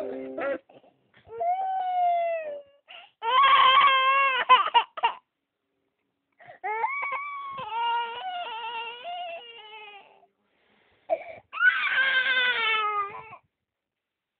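Young child crying in a tantrum: four long cries with short pauses between them, the longest wavering in the middle and the last falling in pitch.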